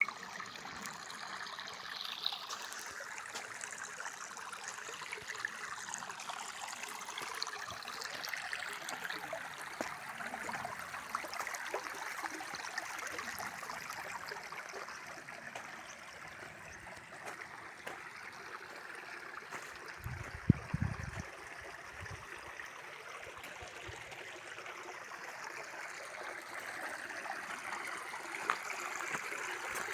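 Steady rush of running water, like a flowing stream, with a few brief low thumps about two-thirds of the way through.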